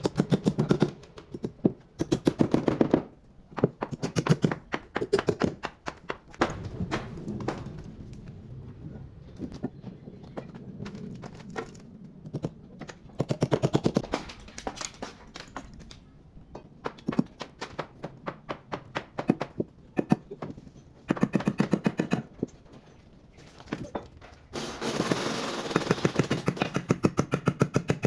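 Rapid runs of sharp knocks in bursts with short pauses, from a tool striking wood during woodworking.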